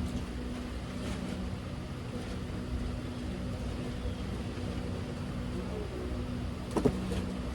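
A steady low mechanical hum, like a running engine or motor, with a short sharp sound about seven seconds in.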